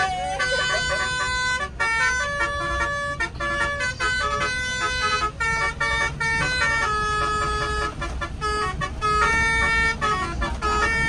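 Bus's musical air horn (basuri 'telolet' horn) playing a tune of steady notes that step from pitch to pitch, with short breaks, over a low rumble.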